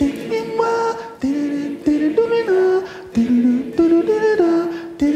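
A single voice sings a wordless a cappella melody in short phrases of held notes that step up and down in pitch, with brief low knocks between some phrases.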